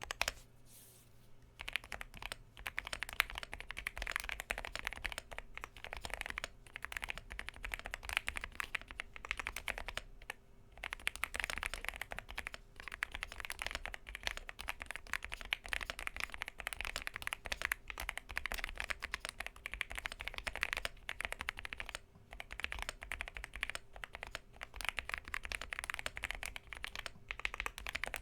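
Typing on a Yunzii AL75 mechanical keyboard with Outemu Pink Jade switches and PBT keycaps: a fast, continuous run of key clacks. It starts about a second and a half in and pauses briefly twice, around ten and twenty-two seconds in.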